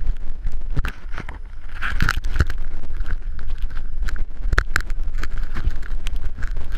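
Handling noise on a body-worn GoPro as its wearer moves: irregular knocks and scraping over a steady low rumble.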